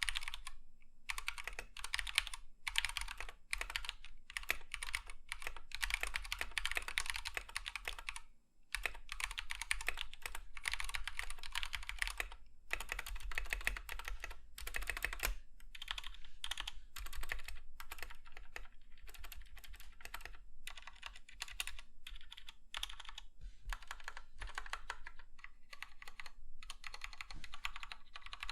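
Typing on a 60% mechanical keyboard with Cherry MX Red linear switches, the Akko 3061: fast runs of key presses with short pauses between bursts. The stabilizers are stock but good, so the typing is fairly quiet.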